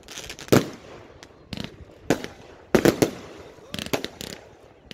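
Aerial fireworks shells bursting overhead: a run of sharp bangs at irregular intervals, about every half second to a second, several close together in the second half, each trailing off in an echo.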